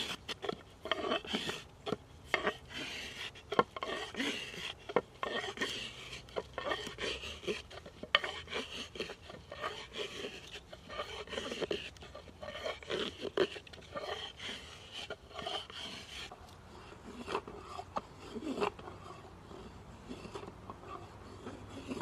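A hand tool scraping and rasping on wood in short, irregular strokes, which grow sparser near the end.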